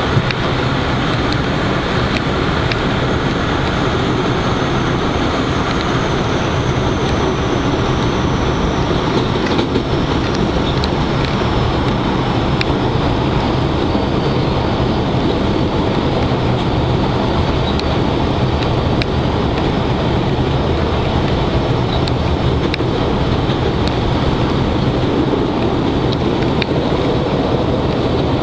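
PATH rapid-transit train running through a tunnel, heard from inside the car: a loud, steady rumble of wheels on rail. A faint high whine falls slowly in pitch over the first ten seconds or so, and light clicks come now and then.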